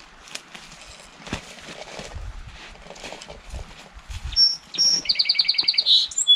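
A small songbird singing near the end: two high clear notes, then a fast trill, the loudest sound here. Before it, irregular rustling and crunching from someone walking through brush.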